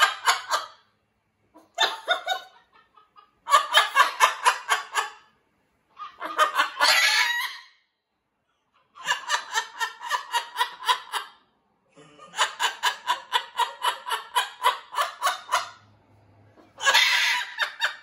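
Green-winged macaw calling in repeated bursts of rapid, evenly pulsed notes, about six a second, each burst a second or a few seconds long, with short silent gaps between.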